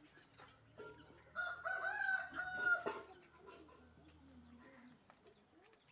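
A rooster crowing once: one long call of about a second and a half, starting about a second and a half in.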